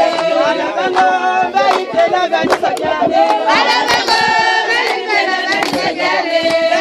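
A crowd singing together, several voices overlapping on held notes, with hand claps.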